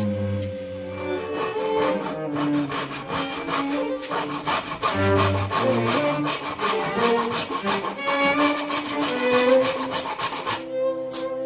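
Quick, evenly repeated back-and-forth strokes of a hand tool rubbing on wood, as in hand sawing or sanding, over background music.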